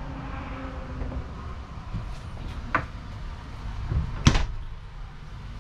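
Cabinet doors in a travel trailer knocking shut twice, a second and a half apart, the second louder, over a low handling rumble.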